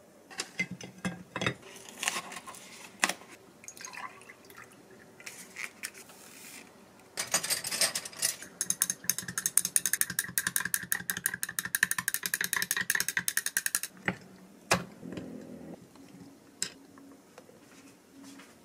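Ice cubes clinking into a drinking glass, then milk poured over the ice for several seconds with dense rapid crackling and clinking. A glass straw clinks against the ice near the end as the iced latte is stirred.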